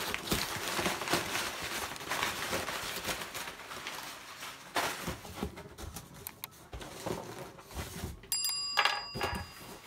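Packing paper and a cardboard shipping box rustling and scraping as the box is unpacked and pushed aside, with a few knocks. About eight seconds in, a bright bell chime rings for about a second: a subscribe-bell sound effect.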